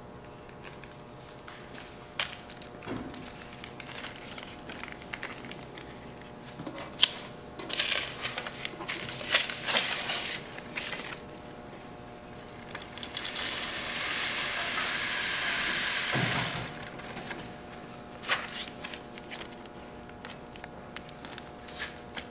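Paper and a small plastic bag being handled: crinkling and rustling with scattered clicks, then a steady hiss of about three seconds as shredded memory-module particles are poured off a folded sheet of paper into the bag.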